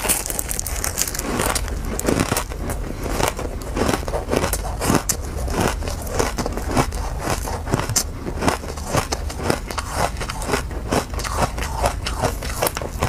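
A person chewing a mouthful of powdery frozen ice: a dense, uneven run of small crisp crunches.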